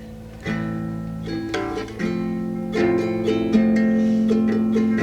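Music with no singing: guitar playing plucked notes that ring on, a new note about every half second in the second half.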